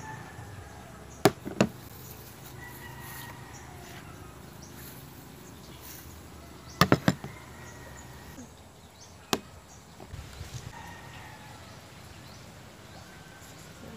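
Several sharp knocks over a background of faint bird chirps and chickens: two about a second in, a quick run of three near the middle, and a single one a couple of seconds later.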